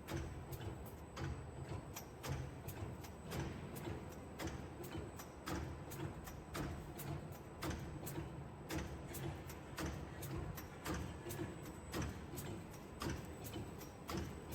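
Fabric pleating machine running, with a steady rhythmic clicking a few times a second over a low hum.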